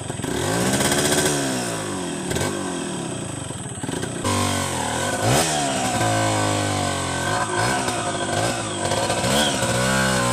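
Two-stroke Yamaha enduro motorcycle engine revved again and again, its pitch rising and falling with each blip of the throttle, while the bike is stuck in thick brush. It gets louder and steadier from about four seconds in.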